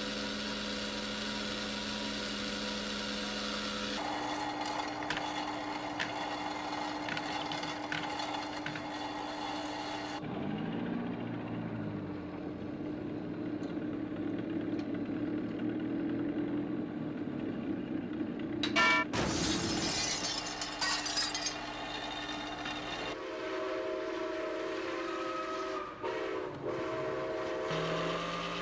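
Electric hum and whir of Lionel toy train accessories running: a barrel loader and cranes. The sound changes abruptly several times, with a brief falling-and-rising whine twice and a run of clicks about two-thirds of the way through.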